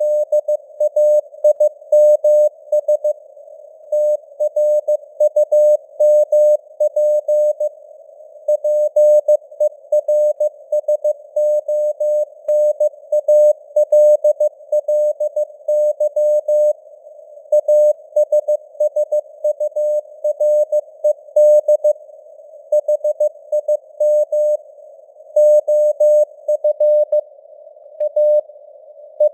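Morse code at 15 words per minute: a single mid-pitched beep tone keyed on and off in dots and dashes, with short gaps between letters and words. Under it runs a faint hiss of simulated shortwave receiver noise, and the signal strength drifts up and down (simulated QSB fading).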